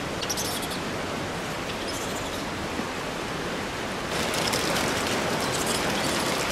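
Steady rushing noise of flowing water, growing louder and brighter about four seconds in.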